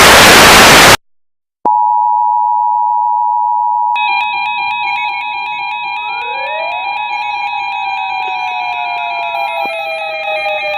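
A second-long burst of loud static, a short silence, then the Emergency Alert System two-tone attention signal (853 and 960 Hz) sounding steadily. About four seconds in, warbling electronic tones and slow rising and falling pitch glides are layered over it, and the higher tone drops out near the end.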